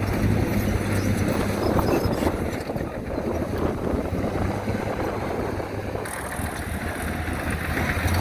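Heavy diesel earthmoving machine running: a steady low engine hum, with a rough, crackling rumble that covers it for most of the middle and eases off near the end.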